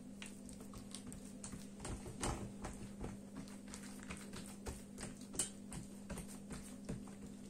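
Hands pressing and patting buttered sheets of dough flat on a tabletop: soft, irregular taps and sticky slaps, with a couple of louder ones about two and five seconds in.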